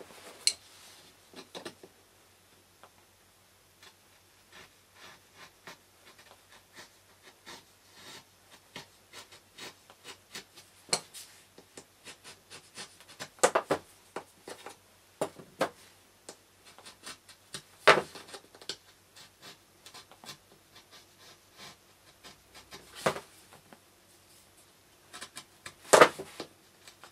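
Woodcarving tools handled against a plywood block and wooden workbench: a run of faint scratching ticks broken by several sharp wooden knocks, the loudest near the middle and near the end.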